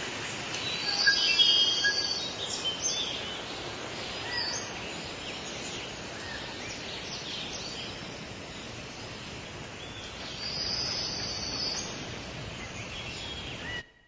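Birds chirping in short scattered calls over a steady outdoor background hiss, which cuts off abruptly near the end.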